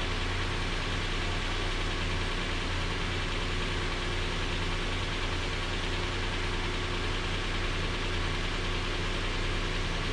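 2017 Nissan Frontier's 4.0-litre V6 engine idling steadily.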